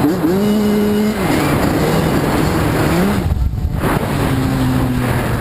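Kawasaki KX85 two-stroke dirt bike engine running while ridden, its revs rising and falling with the throttle and settling lower in the second half.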